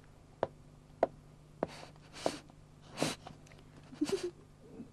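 A woman crying: a string of short gasping sobs and sniffs, with a few faint clicks between them.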